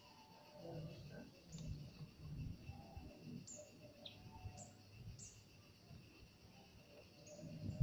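Outdoor ambience of insects droning steadily at a high pitch, with a few short, high, falling bird chirps in the middle, over faint low rumbling.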